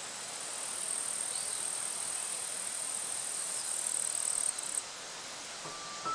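Insects droning in a steady high-pitched buzz over a soft, even outdoor hiss; the buzz drops away about five seconds in.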